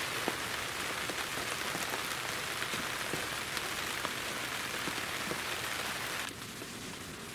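Heavy rain falling on the fabric roof and walls of a hunting ground blind, heard from inside as a steady hiss of drops with small ticks. It becomes quieter about six seconds in.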